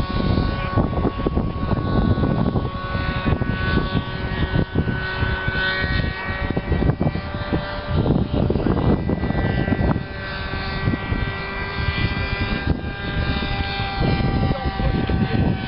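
Radio-controlled model plane's engine and propeller buzzing in flight, a steady high tone whose pitch drifts a little as it flies. A heavy, gusty rumble of wind on the microphone runs under it.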